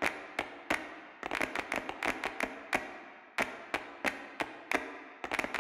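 Background music opening with sharp percussive clicks at a steady beat, about three a second, with a faint held low note joining in the second half.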